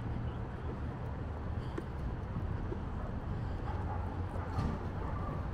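Outdoor city street ambience: a steady low rumble with a few faint ticks.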